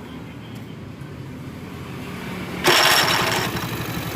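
Engine idling steadily. About two-thirds of the way through, a sudden loud, harsh noise breaks in for under a second, and the engine then runs louder with a fast, even pulse.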